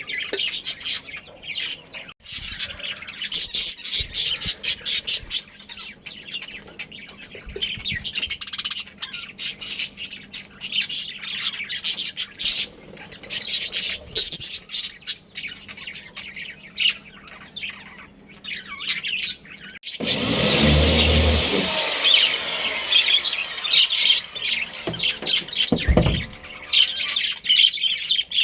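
A colony of budgerigars chattering and chirping, with many rapid, overlapping high chirps. About two-thirds of the way through, the sound turns abruptly louder, with a low rumble under the chirping, and there is one low thump near the end.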